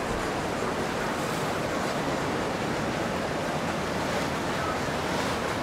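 Steady rushing of wind and water, as from boats moving on the river, with no distinct tone or knock.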